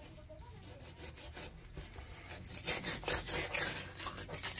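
Knife sawing and scraping along the skin of a largemouth bass fillet on a cutting board as the skin is cut away, a run of rasping strokes that grow louder in the second half.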